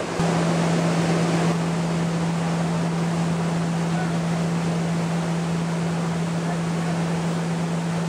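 Coffee mill machinery running loudly: a vibrating sorting table shaking a bed of green coffee beans. A steady low hum runs over a constant noisy rattle of shaking beans.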